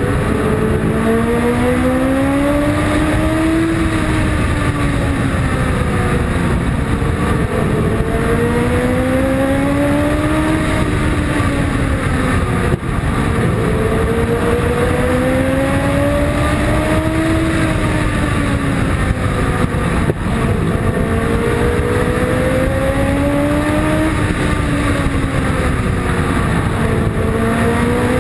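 Open-wheel race car's engine heard from onboard at race pace, its revs climbing over a few seconds and then falling away, about four times over, with a steady rush of wind over the car.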